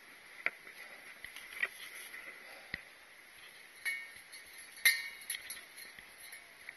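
A hiker's footsteps on a snowy mountain descent: a short, sharp click or crunch about once a second, the loudest about five seconds in.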